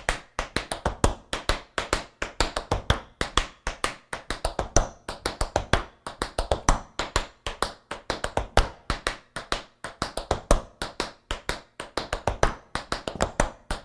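Tap shoes' metal taps striking a wooden floor in rapid, rhythmic clicks, a quickened drill of shuffles, toe and heel drops and scuffs danced through without a stop.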